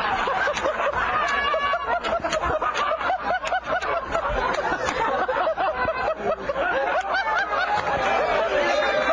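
Several men laughing together, their voices overlapping without a break.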